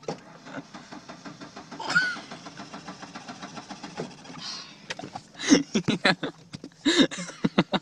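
Ford Ranger pickup's engine heard from inside the cab, a fast even pulsing for the first few seconds, then louder, uneven knocks in the last few seconds.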